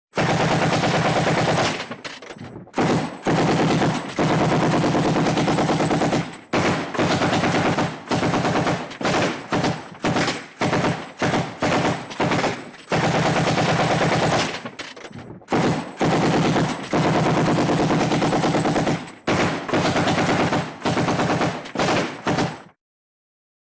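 Vintage film-library machine-gun sound effect: a string of rapid automatic-fire bursts, some long and some short, with brief gaps between them, cutting off abruptly near the end.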